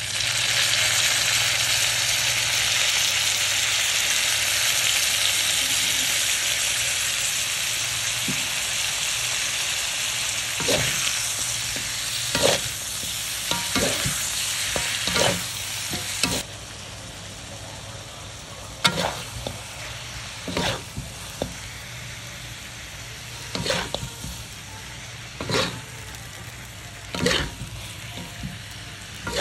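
Food frying in hot oil in a pan, a steady sizzle that drops abruptly a little past halfway. From about ten seconds in, a cooking utensil stirs in the pan with a string of sharp knocks and scrapes against it.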